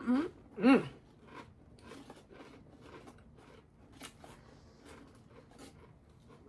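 Two short hummed "mm" sounds of approval near the start, followed by steady crunching and chewing of salt and vinegar Pringles crisps.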